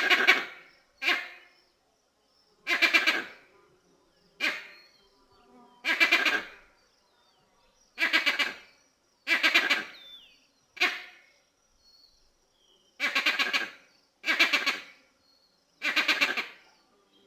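Vervet monkey calling: a series of about eleven rapid stuttering calls, each under a second long, repeated every one to two seconds.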